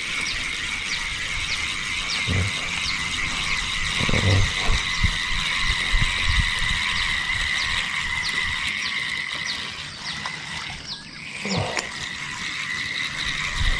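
Spinning reel being cranked steadily as a hooked fish is reeled in: a continuous whirr from the reel's gears with a light tick at each turn of the handle, stopping suddenly at the end. A few dull low thumps come from handling the rod.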